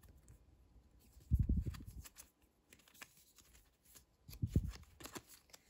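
A small stack of glossy photo cards being flipped through by hand, the cards sliding and ticking against each other. Two soft low thumps of handling come about a second and a half in and again near four and a half seconds.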